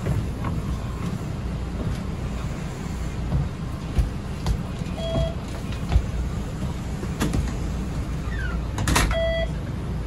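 Toyota Coaster minibus running: a steady low engine and road rumble with scattered knocks and rattles. Two short beeps sound about five and nine seconds in.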